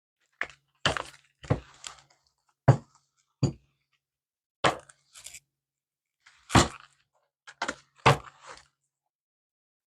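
A tarot deck being shuffled by hand: about a dozen sharp, irregular card slaps and taps, some followed by short rustles.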